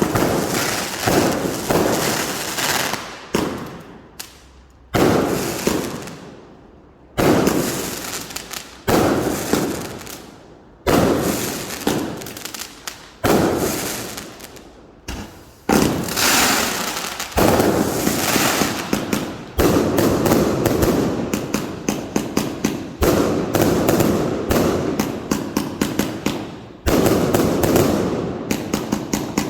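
F2-category consumer firework batteries (cakes) firing: a string of sharp bangs, each trailing off, coming in volleys with short lulls. The shots come thick and fast in the second half.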